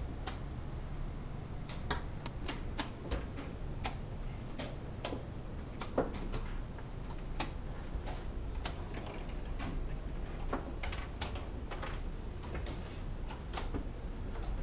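Irregular sharp clicks of wooden chess pieces being set down and chess-clock buttons being pressed in fast blitz games at several boards, sometimes several clicks a second, over a low steady hum.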